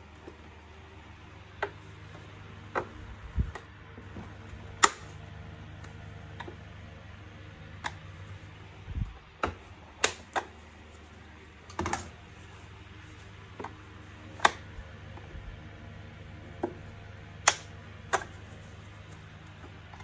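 Plastic housing parts of an Electrolux ZCX6400FF vacuum cleaner clicking and knocking irregularly as the front cover is handled and fitted onto the body, with a couple of dull bumps among the sharp clicks.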